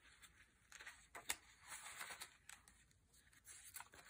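Faint rustling and a few soft flicks of paper pages being turned by hand in a handmade junk journal of mixed writing and scrapbook papers.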